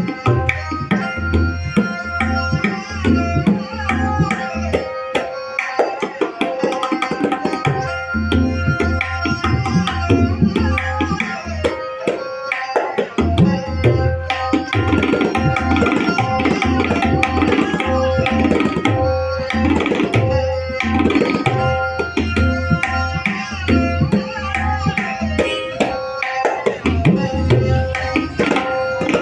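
A tabla pair played in a fast, continuous pattern for a sound check: the tuned dayan rings at a steady pitch over deep bass strokes from the bayan, which falls silent twice, briefly, partway through.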